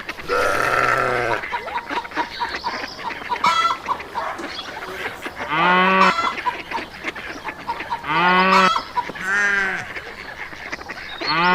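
Farm-animal calls: about five drawn-out, arching cries, each under a second, spaced a few seconds apart.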